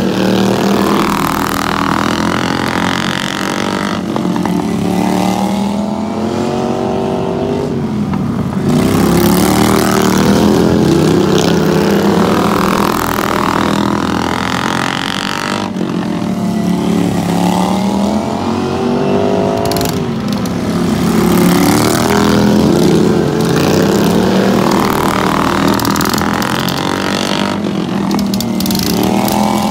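Several racing lawn mower engines running hard together, their pitch climbing and falling again every four or five seconds as the mowers accelerate out of the turns and back off into them.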